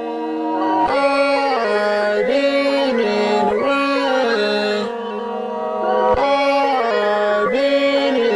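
Music: the instrumental part of a rap beat, a pitched melody sliding between notes with no drums or deep bass.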